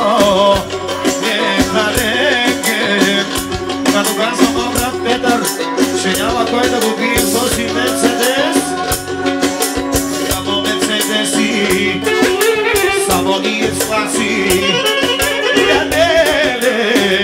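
Live amplified band music: a man singing into a microphone over a fast, dense percussion beat.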